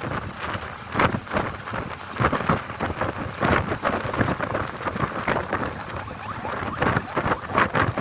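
Wind buffeting the microphone from a moving vehicle's window, in irregular gusts, with vehicle and road noise beneath.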